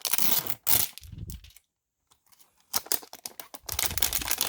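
Crinkling and crackling of trading-card packaging and cards being handled and opened, in two stretches broken by about a second of dead silence in the middle.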